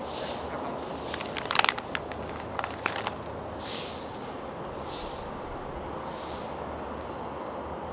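Foil-lined plastic snack bag being torn open and its clear plastic tray pulled out. A cluster of sharp crinkling crackles comes about one to three seconds in, followed by a few softer rustles, over a steady background noise.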